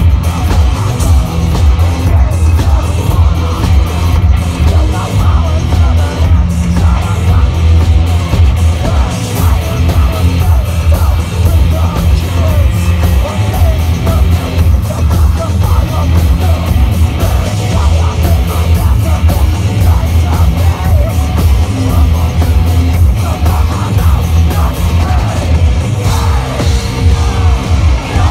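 Heavy metal band playing loud live: heavy bass and drums throughout, with a vocalist singing and yelling into the microphone over the top.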